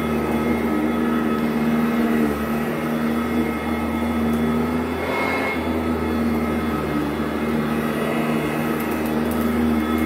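Modified 2010 Sanitaire SC899 commercial upright vacuum running on carpet: a steady motor hum and whine that shifts slightly a couple of times.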